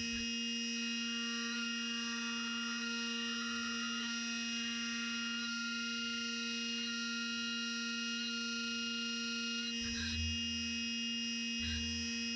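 CNC mill spindle running at a steady speed while a 3/16 end mill cuts a brass belt buckle, giving a constant multi-tone hum and whine. Two short low thumps come about ten seconds in and again near the end.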